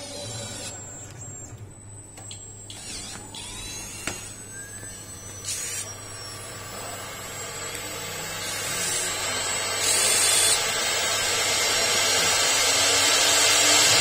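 CNC router spindle running with a high, steady whine. It grows steadily louder through the second half as the bit goes down into the board and starts cutting.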